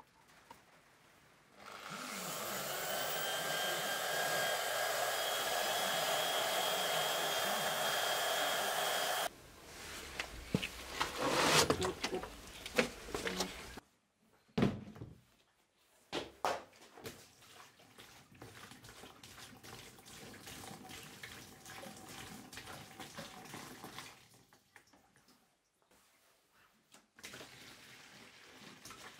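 A power tool's motor spins up, runs steadily with a whine for about seven seconds, then cuts off abruptly. Irregular clattering and scraping of metal parts follow, and near the end liquid pours from a plastic jug into a plastic tub.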